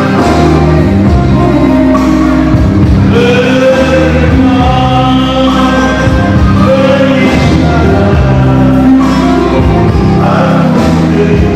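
A man singing into a handheld microphone over instrumental accompaniment, holding long notes that glide in pitch.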